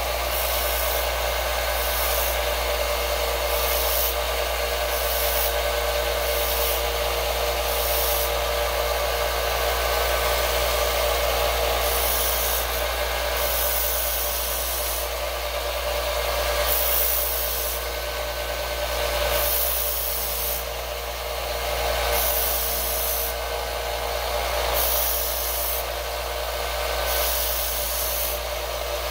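Small benchtop belt sander running with a steady motor hum, while something is held against the moving belt in repeated passes. The hissing grind rises and falls with each pass.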